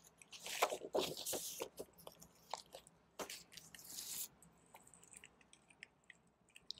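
Paper inner sleeve and printed insert rustling and crinkling as a vinyl LP is handled and slid against it, in two longer bursts with small taps and clicks between.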